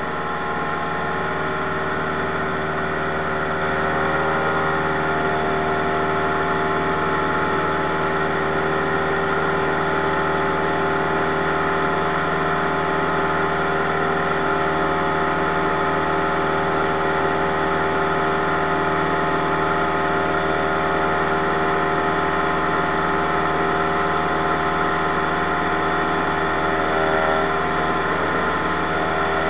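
Cessna 172's piston engine and propeller running steadily in flight, heard inside the cabin as an even, unbroken drone.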